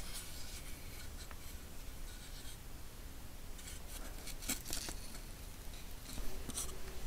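Quiet rubbing and scraping of a mask being handled and pulled away from a face, with a few light clicks a little past halfway and again near the end, over a low steady hum.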